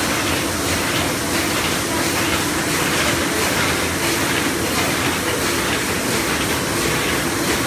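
LONGHUA LH-800E automatic die-cutting machine running steadily, an even mechanical noise throughout.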